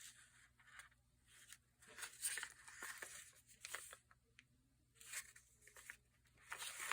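Faint rustling and crinkling of paper being handled, in short bursts with a few light taps between quiet stretches.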